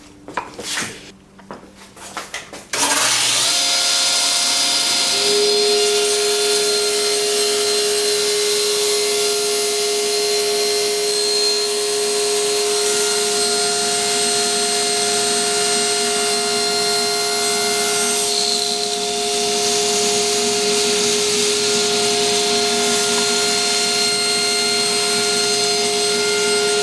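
Table saw switched on about three seconds in and running steadily, a constant machine noise with a steady whine over it, after a few light knocks.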